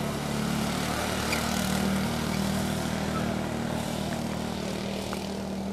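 Small engine of an off-road buggy running on a tyre-lined track, a steady drone.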